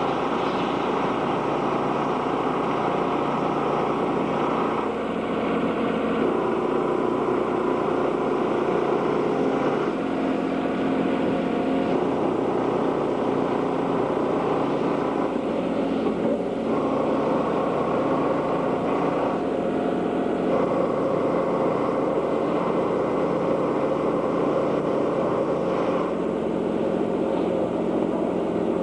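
Steady, loud running noise of engines or heavy machinery with a held mechanical hum. The hum's pitch shifts abruptly every few seconds.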